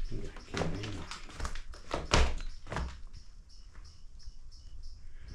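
Footsteps on old wooden floorboards: several heavy thuds and knocks in the first three seconds, then the steps grow quiet. A faint high chirp then repeats a few times a second.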